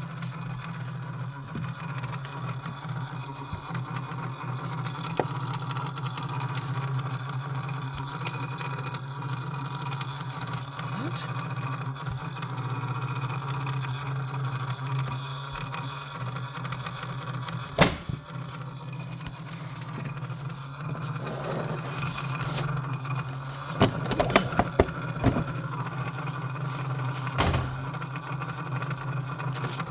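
Steady mechanical hum from a 2016 BMW X6 (F16) that keeps running after the engine has been switched off, the strange after-shutdown noise. A sharp click comes just past halfway, and a few more follow about 24 to 25 seconds in.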